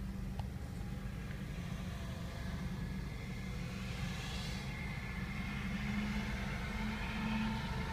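Steady low hum of a car's engine and road noise heard from inside the cabin, with a brief hiss about four seconds in.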